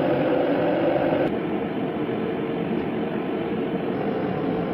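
Steady mechanical whir of a running machine, cutting in abruptly at the start and holding an even level.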